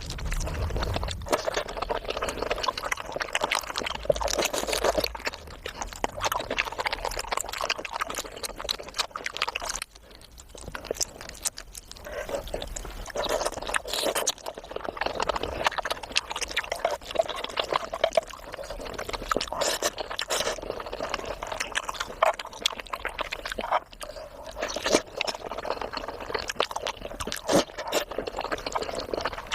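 Close-miked eating sounds: wet chewing and mouth smacking, a dense run of small clicks and squelches with a short lull about ten seconds in.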